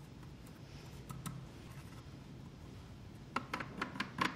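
Light clicks and taps of plastic parts being handled as the arm of a Potato Express electric peeler is adjusted down onto a potato: a few soft clicks about a second in, then a quicker run of clicks near the end.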